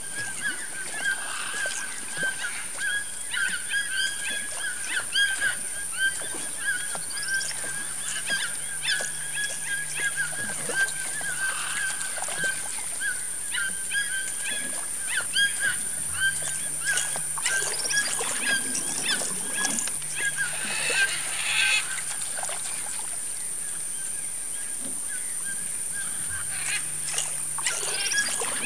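Wild animals calling over open water: many short honking calls repeated over and over at one pitch, with a steady high whine behind them.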